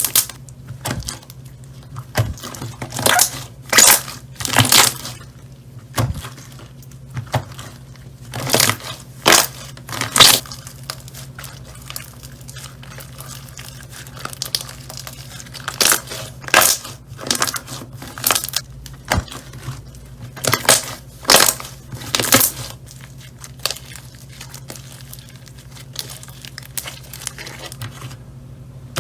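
Crunchy slime being pressed and squeezed, giving irregular sharp crackling crunches, about one to two a second, with fewer of them in the middle and near the end.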